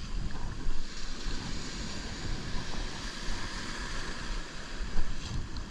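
Shallow surf washing and foaming, with wind buffeting the microphone in low gusts. A brief thump about five seconds in.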